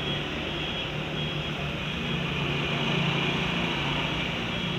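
Steady hum and hiss of street traffic, with no distinct events.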